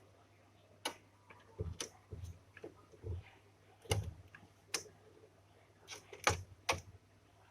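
Irregular sharp clicks and soft low knocks, about a dozen in all, over a faint steady hum.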